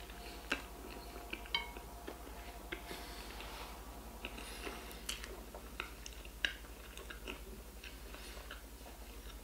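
A man biting into and chewing a large bacon cheeseburger: scattered soft, wet mouth clicks and smacks, over a low steady hum.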